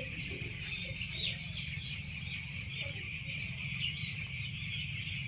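A flock of week-old chicks peeping continuously, many short high calls overlapping, over a steady low hum.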